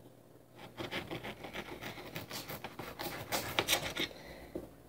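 Irregular scraping and rubbing, many short strokes, starting about half a second in and stopping shortly before the end.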